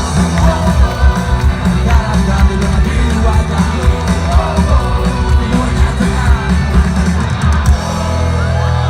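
Rock band playing loud live, drums and bass driving under guitar, then settling onto a held chord near the end.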